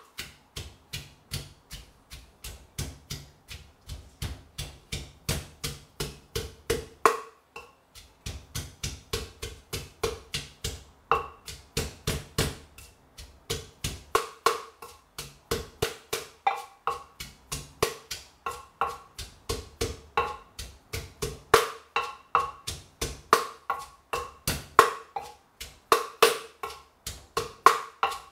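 Wooden pestle pounding garlic and whole chilies in a clay mortar, about three knocks a second, with a brief pause about seven seconds in. The garlic and chilies are being crushed into the base of a papaya salad dressing.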